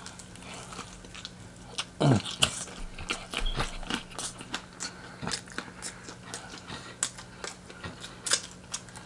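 Close-up mouth sounds of someone chewing and biting fried chicken: irregular crunchy clicks and smacks. A brief low vocal sound, falling in pitch, comes about two seconds in.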